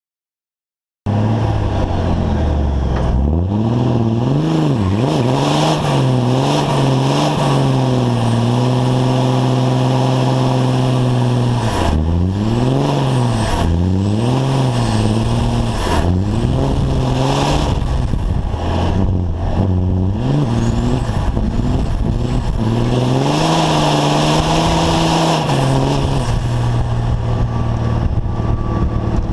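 Semi-truck's diesel engine revving hard, its pitch swinging up and down again and again and holding steady for a few seconds at a time, over the hiss of spinning tyres. It starts suddenly about a second in.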